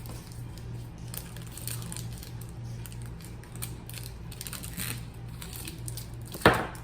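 Crinkling and clicking of snack packets being handled, irregular and fairly quiet over a steady low hum. A short, loud vocal sound falls in pitch near the end.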